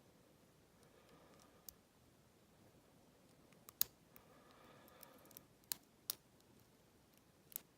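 Faint, scattered metallic clicks of a lock pick working the pins of an old American Lockwood pin-tumbler cylinder held under a tension wrench, about eight sharp clicks spread irregularly over several seconds.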